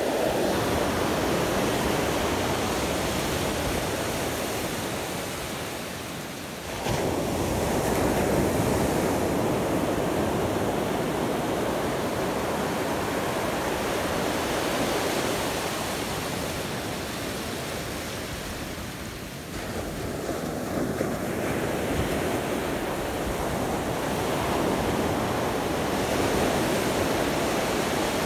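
Ocean surf breaking and washing up the beach, with wind buffeting the microphone. The rush swells suddenly about seven seconds in and again at about twenty seconds, then slowly ebbs each time.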